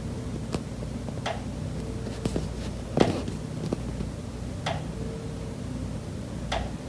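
Water pipes behind a kitchen wall knocking: about seven sharp knocks at uneven intervals, the loudest about three seconds in, over a steady low hum.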